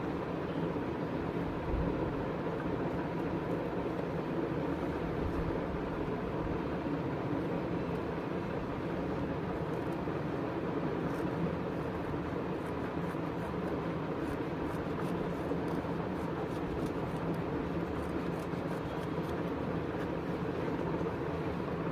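Steady hum of a room fan running. In the second half come faint snips and rustles of felt being cut with scissors.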